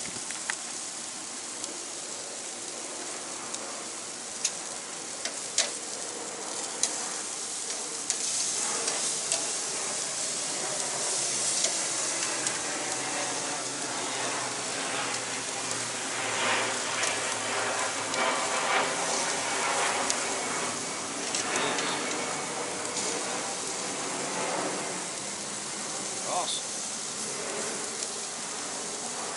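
Steaks and asparagus sizzling on the hot sear grate of a Masterbuilt Gravity Series 560 charcoal grill: a steady sizzle that swells louder through the middle, with a few sharp clicks.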